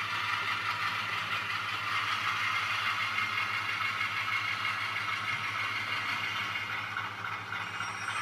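Model diesel locomotive's sound decoder playing a running diesel engine through a tiny 13 mm speaker: a steady, slightly pulsing low hum under a thin, tinny rumble, together with the small motor and gears of the Bachmann 45-tonner model.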